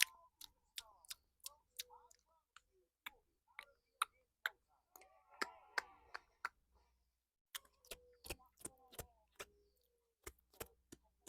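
Close-miked ASMR clicks: a quick, irregular series of small sharp clicks and snips, with a short soft vocal sound about halfway through.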